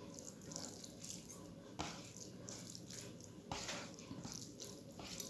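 Wet chewing and mouth smacks of someone eating rice and dal, with small wet clicks throughout and two sharper smacks about two and three and a half seconds in.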